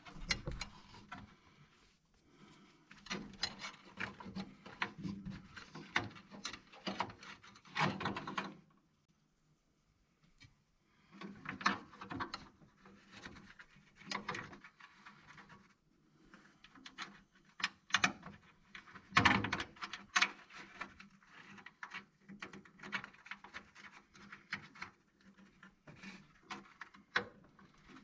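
Small parts and hand tools being handled: irregular clicks, taps and scraping, with a pause of about two seconds near the middle.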